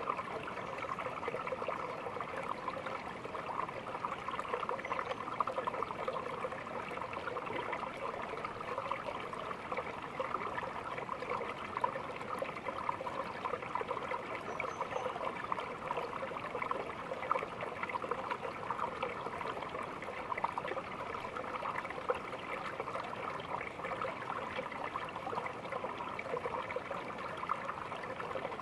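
Small stream babbling and trickling steadily over stones, a continuous bright splashing with no pauses.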